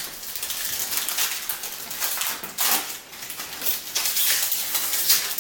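Foil hockey-card pack wrappers crinkling and cards rustling as packs are handled, in quick, irregular, scratchy strokes.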